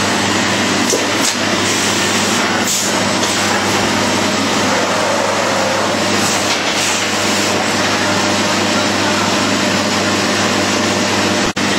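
Textile slitting and cross-cutting machine running: a steady mechanical drone over a constant low hum. The sound drops out for an instant near the end.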